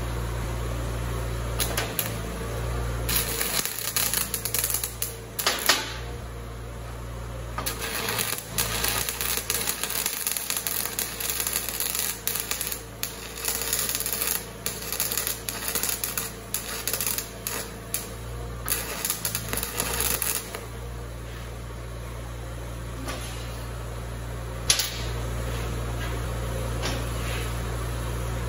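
Welding arc crackling and sputtering in irregular spurts as a Robertson screwdriver bit, clamped in a stick welder's electrode holder, is burned as an improvised welding rod. It stops briefly about six seconds in, then goes on until about twenty seconds in, over a steady low hum.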